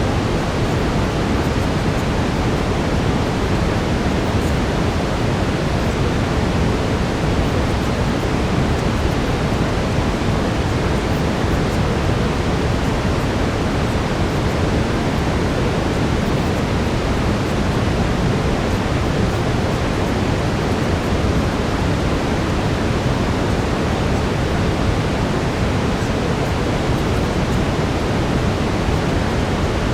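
Steady brown noise: a constant, deep, even hiss with its weight in the low end, unchanging throughout.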